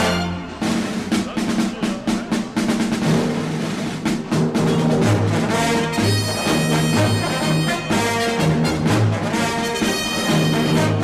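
Soundtrack music with brass and drums and a rhythmic bass line.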